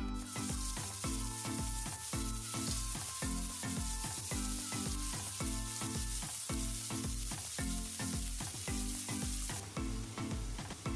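Hot oil in a wok sizzling with whole cumin seeds and then shredded cabbage. The sizzle starts suddenly and drops off near the end. Background music with a steady beat plays over it.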